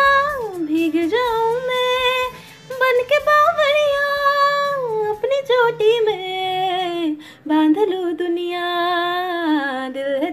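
A young woman singing alone without accompaniment, holding long wavering notes with slides between pitches and no clear words, broken by two short pauses.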